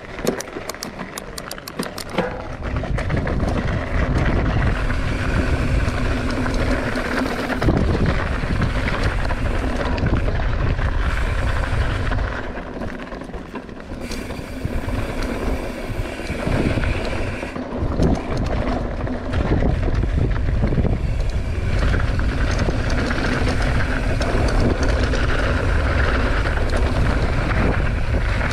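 Mountain bike riding down a dirt jump trail, heard from a camera on the rider: a steady rush of tyre rumble and moving air. There is a quieter stretch about twelve seconds in.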